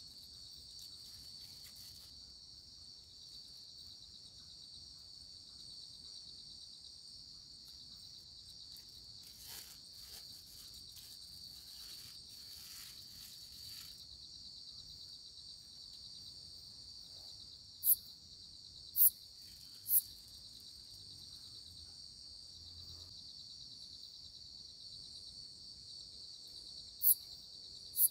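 Night insects trilling in a steady high drone. Past the middle come three short, loud, very high chirps about a second apart, and near the end two more.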